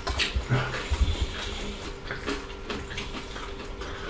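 Close-miked eating sounds of people eating fried pork ribs with their hands: chewing, lip smacks and small wet mouth clicks. There are a few soft low thumps in the first second and a half, then quieter scattered clicks.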